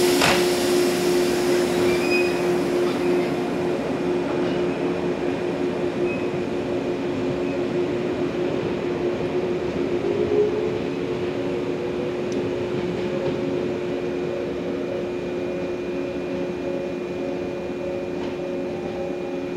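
A yellow JR West 115-series electric train pulling out of the station and moving away, with a steady humming drone and a motor tone that rises about ten seconds in. Its sound fades slowly as it goes.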